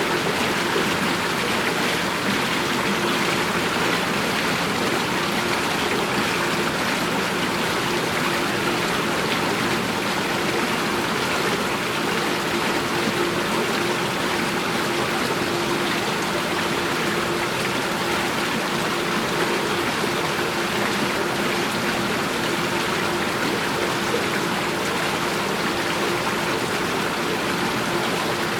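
Running water flowing steadily, an even, unbroken wash of water sound with no pauses or changes.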